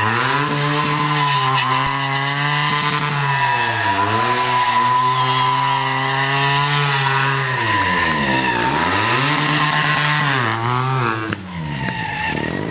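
Stunt motorcycle engine held at high revs, with the revs dropping briefly about four seconds in and dropping deeply then climbing again past the middle, over a steady tyre squeal from the spinning or sliding rear tyre.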